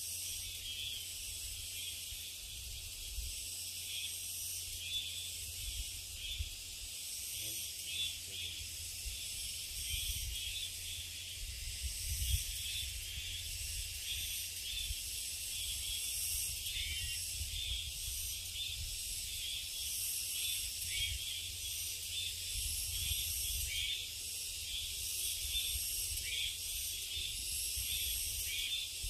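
Steady chorus of summer insects in a forest, a dense high-pitched shrill of many layered tones with a slight pulsing, with a low rumble underneath.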